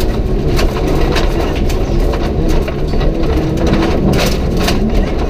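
Rally car engine running hard on a gravel stage, heard from inside the cabin, with scattered sharp clicks and knocks from the loose surface and the car's running gear.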